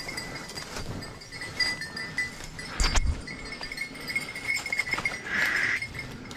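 A bell on a hunting dog's collar tinkles on and off as the dog works through the undergrowth, louder near the end. Under it are crunching footsteps in dry fallen leaves and a single heavy knock about three seconds in.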